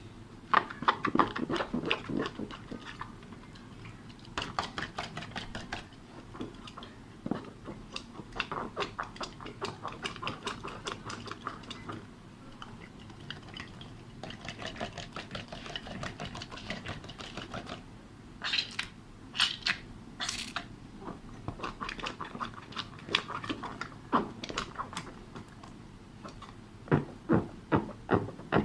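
Slime being squeezed and worked by hand, rapid runs of sticky clicks and pops in uneven bursts, with a few short hissing puffs about two-thirds of the way through.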